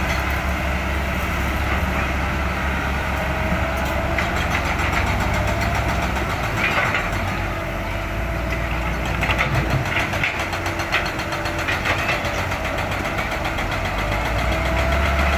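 Caterpillar hydraulic excavator's diesel engine running under load as it dumps, digs and swings, its low rumble easing after about six seconds and rising again near the end. A few short clanks and rattles of soil and rock come in the middle.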